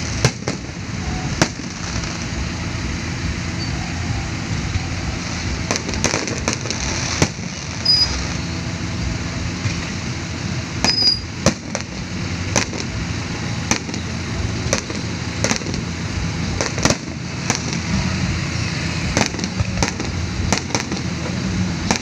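Aerial fireworks shells bursting in the sky: many sharp bangs at uneven intervals over a steady background din.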